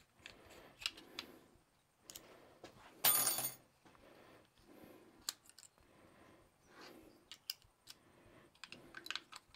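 Small clicks and metallic taps from a utility knife being opened and its blade changed, with one louder scrape about three seconds in.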